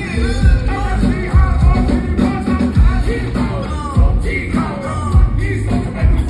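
A rock-style song: a singing voice over drums and bass.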